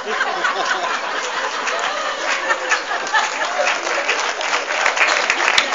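Audience applauding steadily, with a few voices mixed in.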